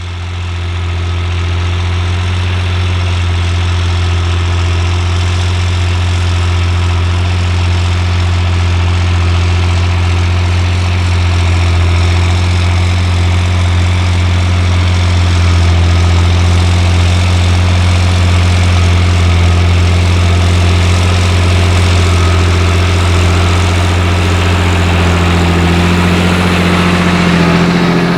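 John Deere 8300 tractor's six-cylinder diesel engine running steadily with a deep, even drone, under load from a seven-furrow plough.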